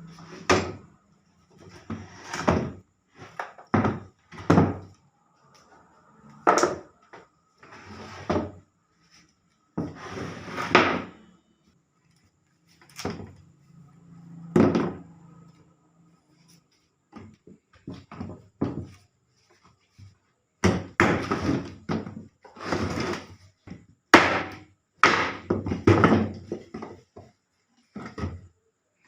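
Irregular wooden knocks and thuds, some with a short scrape, from wooden table parts being handled and worked on, with brief silent gaps between them.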